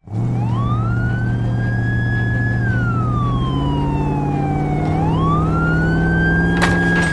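Emergency-vehicle siren wailing: a slow rise, a hold, a long fall and a rise again, over a steady low engine drone.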